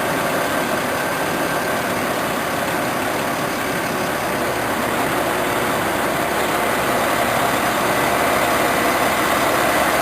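An engine running steadily at idle, an even drone with a faint whine that holds one pitch throughout.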